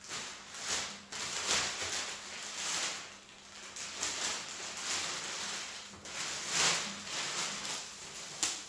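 Plastic bubble wrap rustling and crinkling in repeated bursts as a wrapped tennis racket is handled and lifted out of a cardboard box.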